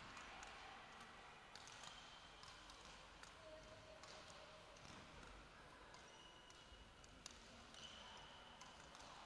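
Faint sounds of a badminton rally: sharp racket strikes on the shuttlecock every second or two, the clearest about seven seconds in, and short high squeaks of court shoes on the hall floor.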